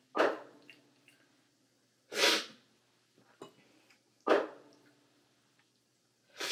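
Loud, sharp slurps of brewed coffee from a cupping spoon, one about every two seconds, with faint clicks in between: a taster working through the bowls at a coffee cupping.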